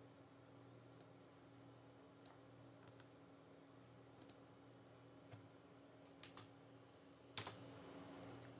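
Near silence: faint room tone with a low steady hum and about a dozen small, scattered clicks, the loudest a pair near the end.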